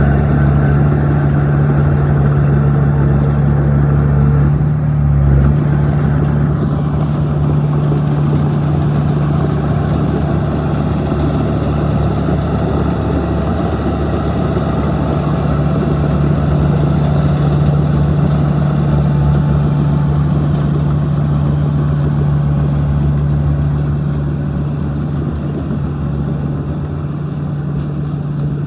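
Bulldozer's diesel engine running steadily under load, a heavy, even hum of constant pitch, with a brief shift about five seconds in.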